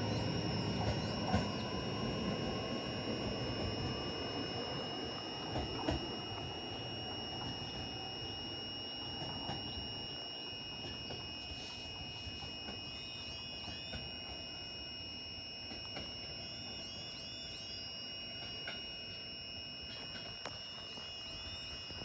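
Steady high-pitched electrical whine from a JR EV-E301 'ACCUM' battery train standing at the platform, with the low rumble of a second train pulling out and fading away over the first several seconds.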